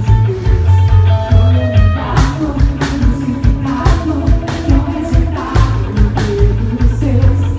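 Live band playing a worship song with singing, with bass, guitar and a steady drum beat.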